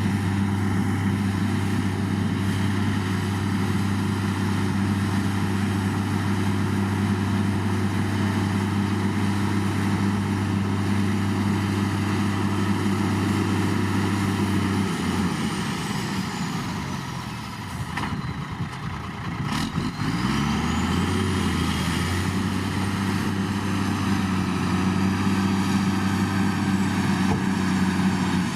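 Shantui bulldozer's diesel engine running steadily under work. About halfway through its pitch falls and wavers for a few seconds, with a couple of sharp clicks, then it rises back to a steady run.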